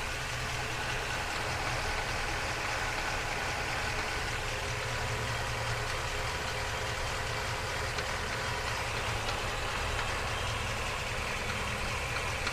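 Ford F350's 7.3-litre V8 idling steadily, heard from underneath close to the 10-speed automatic transmission, with a knocking that the owner takes to be coming from the transmission rather than the engine.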